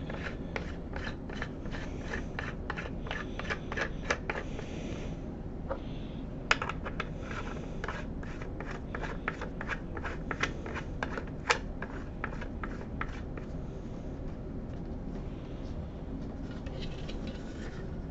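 Small clicks, taps and rubbing of microscope parts being handled and fitted by hand, scattered irregularly, with a few sharper clicks.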